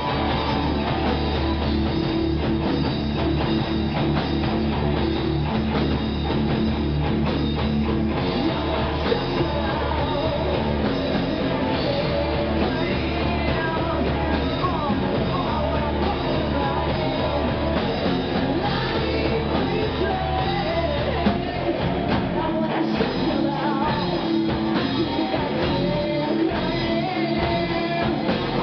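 Live rock band playing: electric guitars, drum kit and a woman singing into a microphone. The deepest bass thins out about three-quarters of the way through.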